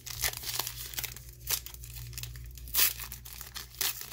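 Wrapper of a 2020 Panini Diamond Kings baseball card pack being torn open and crinkled by hand: a run of sharp crackles, the loudest about three seconds in.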